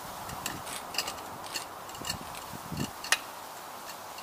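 Scattered light clicks and knocks of plastic parts being handled: a garden hose and its fitting against a plastic two-stage water-filter housing. The sharpest knock comes about three seconds in.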